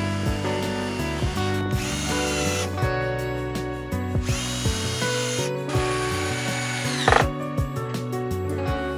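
Cordless drill-driver running in several short runs that whine up and fall away, drilling, countersinking and driving screws into plywood, with clicks as screws seat. Electronic dance background music plays throughout.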